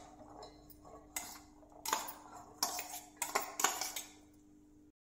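Chopped fresh coconut pieces tipped by hand from a steel plate into a stainless-steel mixer-grinder jar, clattering against the metal in several separate spills.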